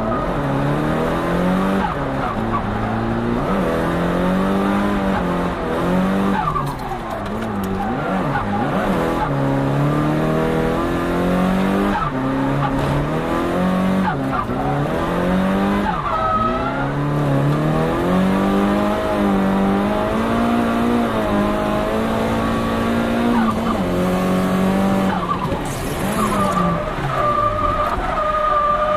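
Turbocharged Nissan Silvia S15 engine, fitted with an HKS GTIII turbo kit, under hard driving. The engine note rises and falls over and over as the car accelerates, lifts and shifts, and a brief hiss comes about three-quarters of the way through.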